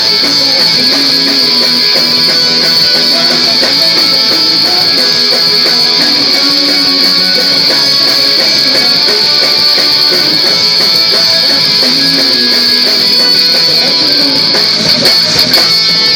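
Band playing live at a sound check, with guitar to the fore in a loud, steady rock-style arrangement.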